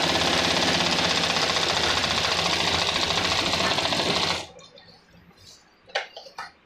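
Sewing machine running at a steady fast stitching speed, sewing a seam through kurta cloth, then stopping abruptly about four seconds in. A few faint short clicks follow.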